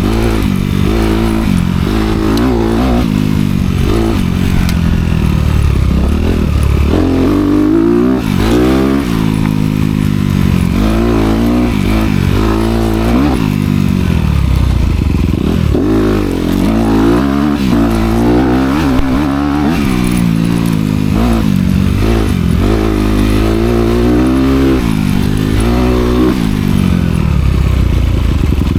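Honda CRF250R dirt bike's single-cylinder four-stroke engine, through its dual exhaust, revving up and down again and again as it is ridden hard.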